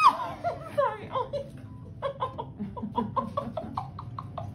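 A high-pitched excited squeal fading out, then a run of quick, breathy giggling laughter in short bursts.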